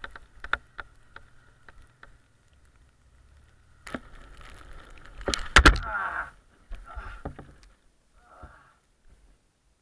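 Motorcycle engine running with a faint steady hum under snowstorm wind on a helmet camera, with scattered clicks early on. About halfway through comes a cluster of loud knocks and a clattering burst, followed by a few more knocks.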